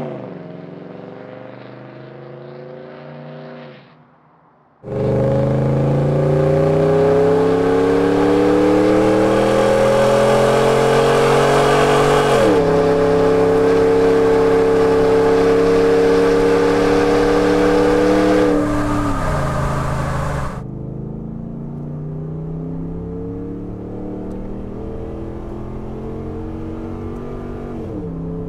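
Ford F-150's 5.0L Coyote V8 through a Flowmaster American Thunder stainless cat-back exhaust. First it pulls away and fades. Then, heard at the tailpipe, it accelerates hard, its note climbing, dropping at a gear change, and climbing again before it lets off. Last, heard inside the cab, it is quieter and duller, revving near 5,000 rpm with a shift near the end.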